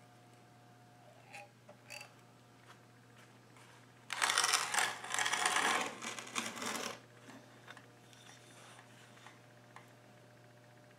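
A clay catch dish lined with foil scraping and rattling roughly across a wooden workbench, for about three seconds starting some four seconds in. A few light clicks come before it, and a low steady hum runs underneath.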